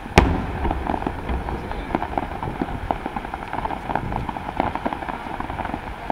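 Aerial fireworks: one loud shell burst just after the start, followed by a run of many smaller pops and crackles from bursting stars.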